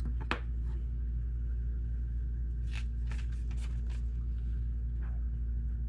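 Light plastic clicks of Lego pieces being handled, over a steady low hum: one sharp click just after the start, then a scatter of fainter clicks about three seconds in and again near the end.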